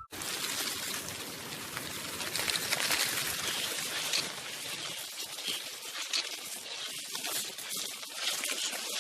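Running water, a steady splashing hiss.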